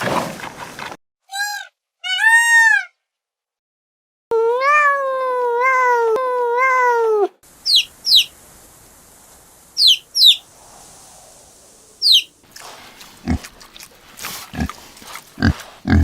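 A string of separate animal calls cut together: two short arched cries, then three long wavering calls, then a few quick high chirps, and a run of low thuds near the end.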